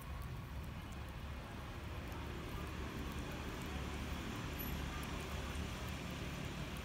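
Steady low rumble of road traffic, with no distinct sounds standing out.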